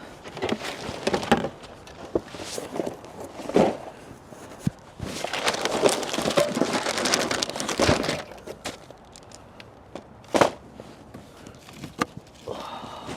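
Plastic snack packaging crinkling and rustling as it is handled, in short bursts and then a longer stretch of steady crackling, with one sharp knock later on.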